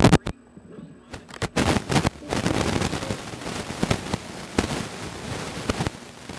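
Plastic Lego bricks clicking and rattling as a brick-built puzzle safe is handled close to the microphone. A few sharp clicks come first, then dense rattling and scraping from about two seconds in until near the end.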